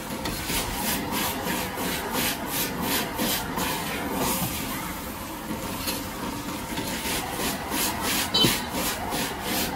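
Metal ladle scraping and knocking against a wok as fried noodles are stir-fried and tossed over a high flame, about three strokes a second in two runs with a short lull between, over a steady sizzling hiss. One louder ringing clang comes near the end.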